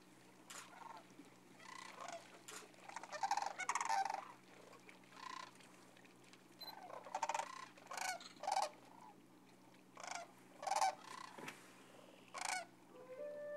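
A flock of sandhill cranes calling: a string of short rolling calls from several birds, some overlapping, others alone with short gaps between. Music comes in just at the end.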